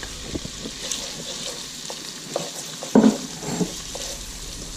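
Chopped shrimp frying in a pan of butter with onion and red bell pepper: a steady sizzle, with small ticks and a brief louder sound about three seconds in.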